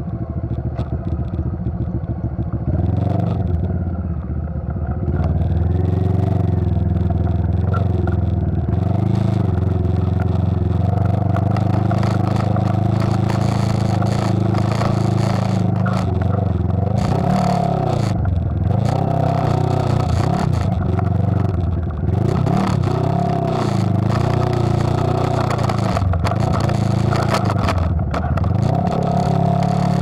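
Motorcycle engine running, heard from the rider's own bike, its pitch rising and falling again and again with the throttle over a rough road, with tyres and frame clattering over loose gravel.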